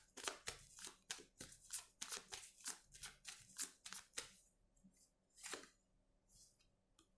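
A deck of tarot cards being shuffled by hand: quick swishing strokes at about four a second that stop after about four seconds, then one more stroke a second later and a few faint taps.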